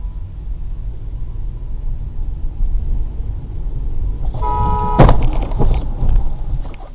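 Low road and engine rumble inside a moving car. About four and a half seconds in, a car horn sounds briefly, and it is cut off by a loud crash impact about five seconds in, followed by a few smaller knocks and rattles.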